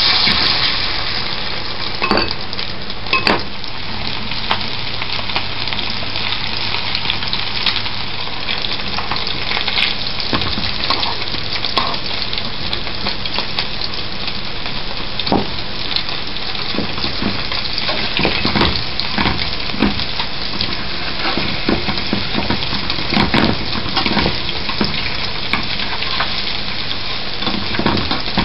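Meat-topped bread slices frying in fat in a frying pan, a steady sizzle. A few short clicks and scrapes of a fork against the pan, most of them in the second half.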